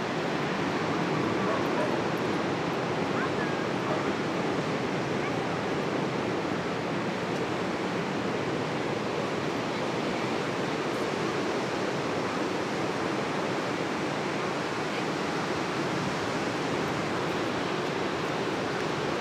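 Ocean surf breaking and washing over the shore: a steady, even rush of water.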